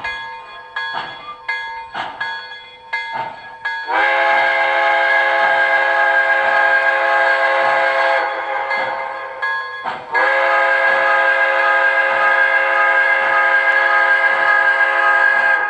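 Digital steam sounds from the MTH Proto-Sound 3 system in a USA Trains Docsider 0-6-0 model locomotive: chuffing about twice a second, with two long chime-whistle blasts over it, the first about four seconds in and the second about ten seconds in.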